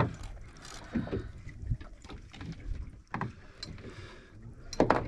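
Wind and water lapping around a drifting boat, with a few sharp knocks on the boat; the loudest knocks come near the end.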